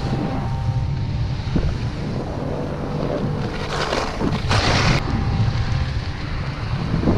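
Wind rushing over a GoPro's microphone as a skier runs downhill, over the hiss and scrape of skis on packed snow. A louder scraping hiss comes about four and a half seconds in and cuts off sharply half a second later.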